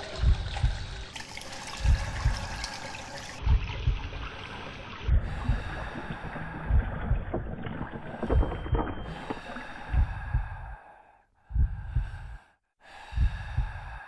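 Slow heartbeat: paired low thumps, lub-dub, about every second and a half, over steady sustained tones. It cuts out briefly twice, about eleven seconds in and again at about twelve and a half.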